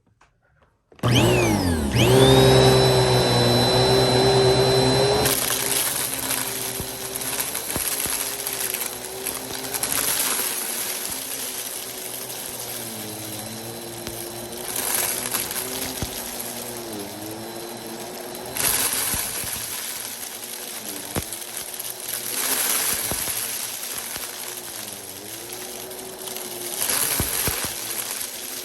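Vacuum cleaner with a spinning brushroll switched on about a second in, its motor whining up to speed and then running steadily. Dry rice, macaroni and beans rattle and click as they are sucked up, in several louder bouts, and the motor pitch dips briefly under load.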